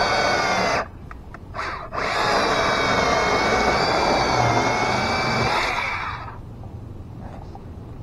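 Bauer cordless electric chainsaw running and cutting into a log: a steady high whine that stops a little under a second in, gives a short blip, then runs again for about four seconds before winding down.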